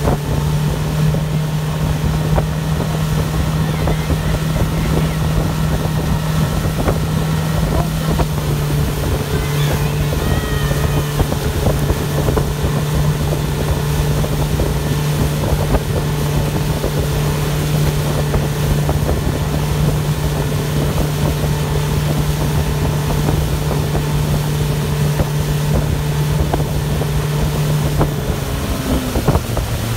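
Mercury outboard motor running steadily at speed while towing a banana boat, with wind on the microphone and the wake rushing past. About two seconds before the end, the engine note drops to a lower pitch.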